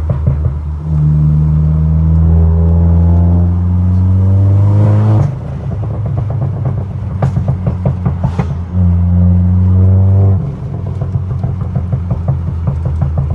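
Volkswagen Golf R's turbocharged four-cylinder engine revved and held high twice, the first rev climbing slowly for about four seconds before cutting off sharply, the second shorter. Between the revs it idles unevenly, with a few sharp exhaust cracks.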